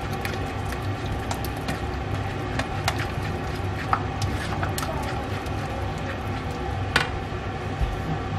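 Plastic ladle stirring thick melted cheese for cheese fondue in a nonstick pan, with soft squishing and scattered light clicks of the ladle against the pan, over a steady low hum.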